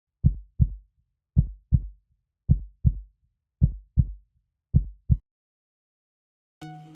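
Heartbeat sound effect: five pairs of deep, short thumps, about one pair a second, then a pause. Music starts near the end.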